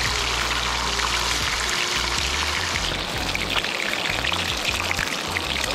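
Fish frying in hot oil in a pan, a steady sizzle that turns more crackly with small pops about halfway through, under background music with a bass line.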